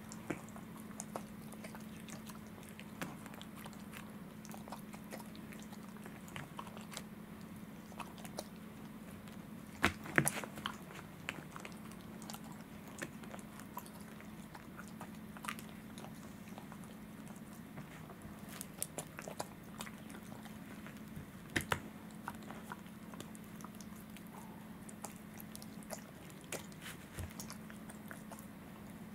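Welsh corgi gnawing and chewing a rawhide chew, with irregular crunches and clicks of teeth on the hide. A few louder crunches come about ten seconds in and again a little past twenty seconds.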